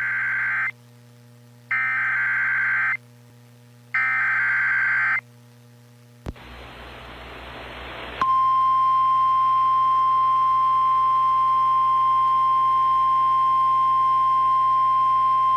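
Emergency Alert System tornado-warning alert: shrill warbling digital SAME header bursts, each about a second long, repeating about every two seconds. After them comes about two seconds of static hiss, and then, about eight seconds in, the single steady 1050 Hz NOAA Weather Radio warning alarm tone starts and holds.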